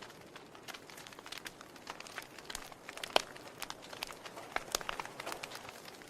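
Wood fire crackling in a fireplace: irregular sharp pops and snaps over a soft hiss, with one louder pop about three seconds in.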